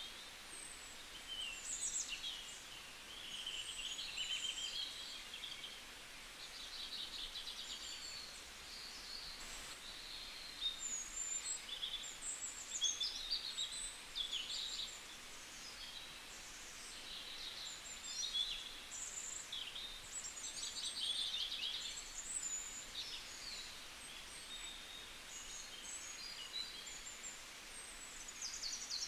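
Small birds chirping steadily, an unbroken stream of short, high calls and trills.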